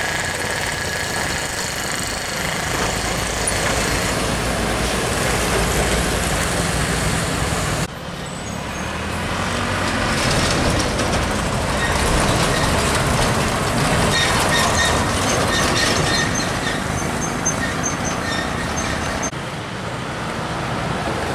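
Heavy diesel box trucks driving past on a road bend, one after another: engine running and tyre noise. The sound cuts abruptly to the next truck about eight seconds in and again near the end.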